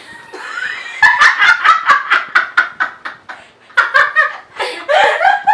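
Three women laughing together: a fast run of repeated 'ha' pulses starts about a second in, eases briefly past the middle, then picks up again.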